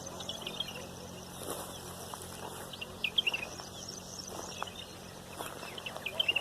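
Many small birds chirping and twittering in a dawn chorus, with short, quick calls overlapping and a cluster of sharper chirps about three seconds in.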